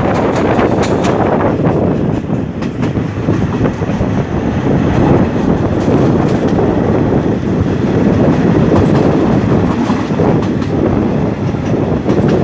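A State Railway of Thailand passenger train running at speed, heard from an open carriage window: a steady rumble of wheels on the track, with a few clicks from rail joints in the first three seconds.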